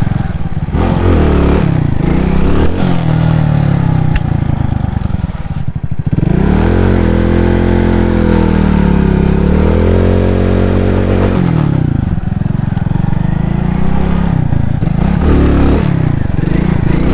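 Moped's small engine running under way, its pitch rising and falling with the throttle, with a long steady pull in the middle, over wind noise on the microphone.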